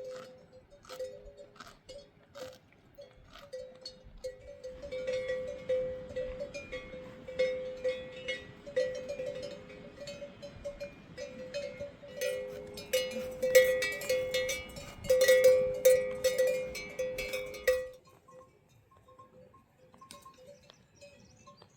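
A metal bell clanking over and over at an uneven pace, growing busier and louder about four seconds in, then stopping abruptly near the end.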